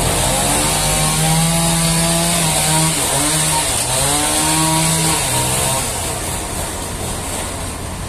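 Toyota forklift's engine working, with a pitched whine that drops and rises again twice over a steady high hiss, then falls back to a lower running sound near the end.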